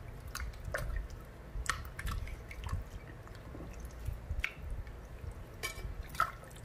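Wet squelching and small irregular splashes of hands rubbing and squeezing a whole raw chicken in a glass bowl of vinegar and salt water.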